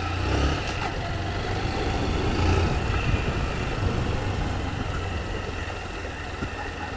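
Honda CG 160 Fan motorcycle's single-cylinder engine running steadily under way, with wind noise on the helmet-mounted microphone. It grows slightly louder about two to three seconds in, then eases off.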